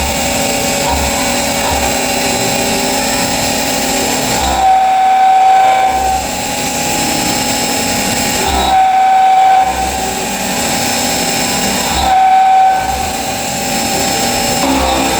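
CNC milling machine's end mill cutting aluminium on a high-speed dynamic toolpath: a steady, high-pitched machining whine. It swells louder three times as the cutter's load changes.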